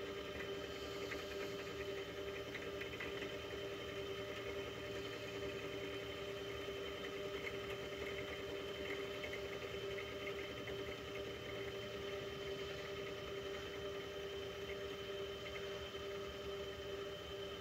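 Mini mill spindle running steadily, a constant motor whine, while an end mill takes a light cut of a few thou around the connecting rod's big-end boss. There is a faint crackle of cutting as the rotary table is turned.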